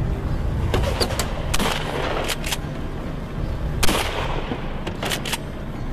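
A series of sharp shotgun shots at irregular intervals, the loudest about four seconds in, with a steady low rumble underneath.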